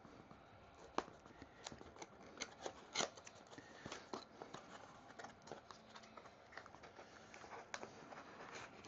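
Faint handling of a product box and its packaging being opened: soft rustling and scraping with scattered light taps and clicks, the sharpest about a second in and about three seconds in.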